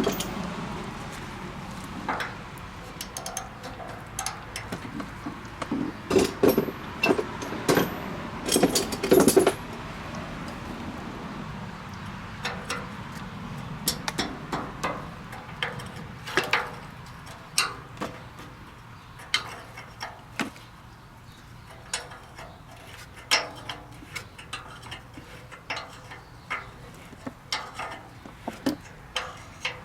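Metal hand tools and tractor brake parts clinking and knocking as they are handled, in scattered irregular strikes. About six to nine seconds in comes a louder run of knocks with ringing metal.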